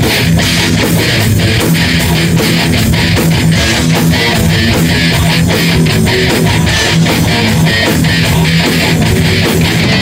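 A heavy metal band playing live and loud: electric guitars and bass over fast, steady drumming.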